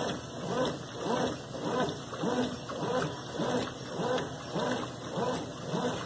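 Consul Maré Super CWL10 top-loading washing machine in its wash agitation: the agitator swings back and forth about twice a second, each stroke a surge of motor hum and sloshing soapy water.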